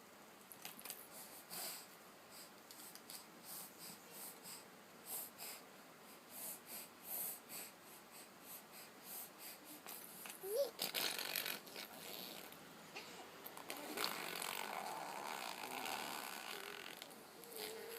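A baby making wet noises with her lips and saliva: a run of short smacks and pops, then longer breathy lip-blowing sounds in the second half.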